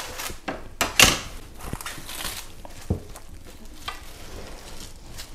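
Plastic cling film crinkling and rustling as it is cut with scissors and pressed down over a glass baking dish, with a sharp clack about a second in and a softer knock near three seconds.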